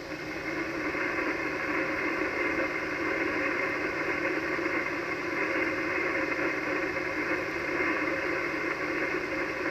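Static and band noise from an Icom HF transceiver's receiver on the 80 m band, a steady hiss held to a narrow voice-width band, heard between transmissions while no station is on the air.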